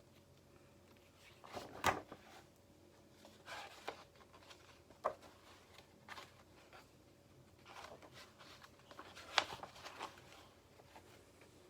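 Quiet room with a few soft clicks and rustles, as of something being handled, the sharpest about two seconds in and again about nine seconds in.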